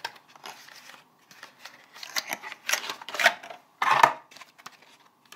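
Cardboard box sliding out of a clear plastic sleeve and being handled, with a series of short scrapes and rustles of cardboard and plastic. The loudest comes about four seconds in.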